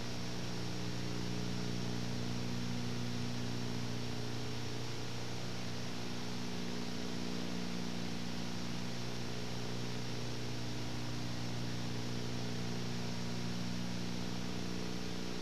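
Steady low hum under an even hiss, with no change and no other events.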